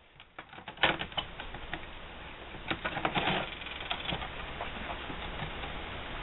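Light clicks and taps of a satellite meter's plastic case, circuit board and wire connectors being handled, scattered through the first four seconds with a clump of them about three seconds in. After that there is only a steady low hiss.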